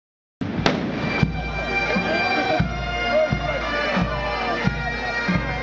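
Bagpipes playing a slow tune over their steady drones, starting suddenly about half a second in, with a bass drum beating about every two-thirds of a second. A single sharp bang goes off just after the music starts.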